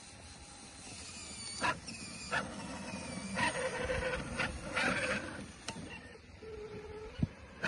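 Traxxas TRX-4 RC crawler's electric motor and gear drive whining in uneven spurts, pitch rising and falling with the throttle as it crawls over logs in snow, with a few sharp knocks and clicks from the chassis and tyres.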